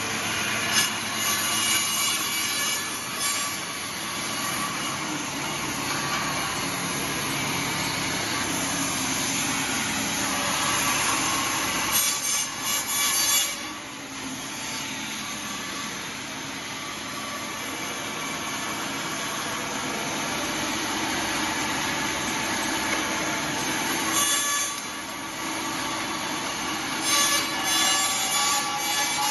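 Band saw of a pallet dismantling machine running steadily, with several louder spells of cutting as pallets are pushed through the blade, which saws the boards apart along the joints between the pallet's parts.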